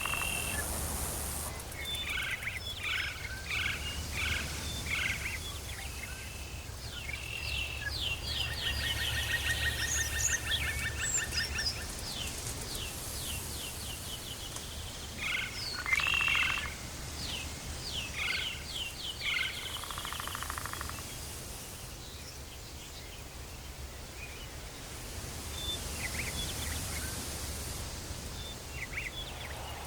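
Tropical forest ambience: birds chirping and trilling in short repeated runs, some calls high and rapid, over a steady low hum.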